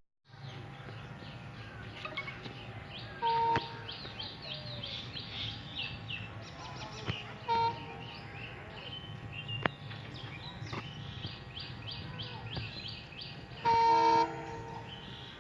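Birds chirping steadily and densely. A train horn sounds three times: short blasts about three and seven and a half seconds in, and a longer one near the end, each a single steady pitch.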